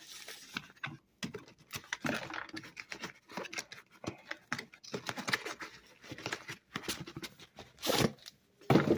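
Cardboard product box being opened and its contents pulled out by hand: irregular rustling, scraping and light clicks of cardboard and packaging, with a louder rustle near the end.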